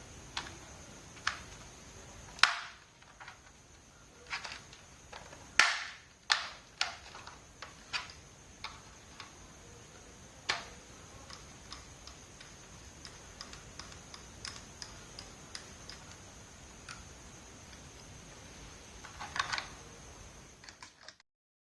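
Irregular clicks and taps of a laptop being worked on by hand, plastic case parts and small hardware handled, with two louder knocks a few seconds in and a short flurry of clicks near the end.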